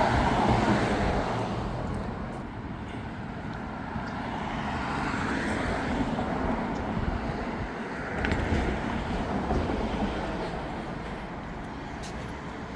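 Street traffic: a steady hum of road noise that swells and fades as cars pass.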